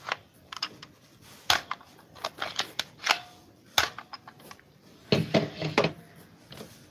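Plastic toy gun's mechanism worked by hand: a run of sharp, irregular clicks and clacks, then a short cluster of rattling handling noise about five seconds in.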